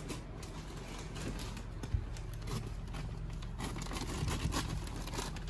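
Rustling and scraping of paper-faced insulation being handled and fitted into a wall, with scattered small clicks and denser rustling in the last couple of seconds, over a steady low hum.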